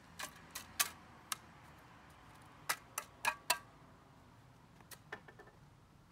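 Steel shovel digging into stony garden soil: a run of sharp scraping clicks as the blade strikes grit and stone, about eight in the first four seconds, then two fainter ones near the end.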